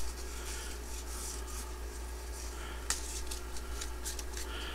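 Faint rubbing and rustling of Yu-Gi-Oh trading cards being handled and slid against each other, with a light click about three seconds in.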